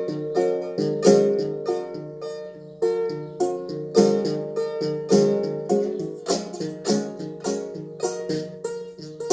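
Plucked-string melody, a few notes a second, each struck sharply and then ringing and fading.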